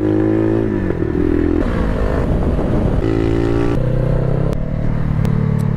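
Bashan Motomax 250 four-stroke motorcycle engine while the bike is ridden. The engine note rises and drops several times as it revs and changes speed, with a few short clicks in the second half.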